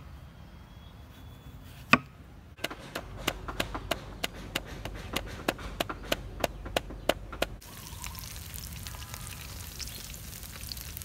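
A cleaver chops twice on a wooden chopping block. Then comes a fast run of knocks, about three a second, as a wooden pestle pounds in a clay mortar. After about seven and a half seconds, hot oil sizzles steadily as spring rolls deep-fry in a wok.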